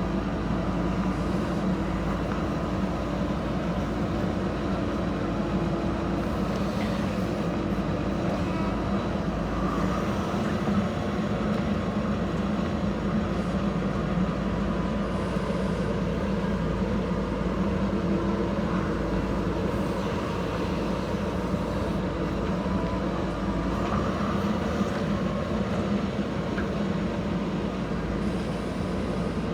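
Diesel engine of a JCB 3DX backhoe loader running steadily as it works, with a constant low hum that neither rises nor falls much.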